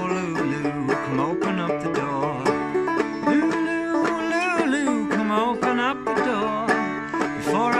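Five-string banjo tuned aDADE, played clawhammer style: a steady old-time frailing rhythm of quick plucked notes and brushed strums.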